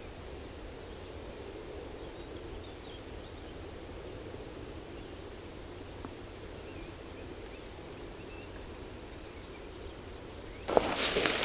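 Distant black grouse cocks bubbling at a lek, a steady low murmur, with faint small-bird calls over it. Near the end, loud crunching footsteps through dry grass cut in.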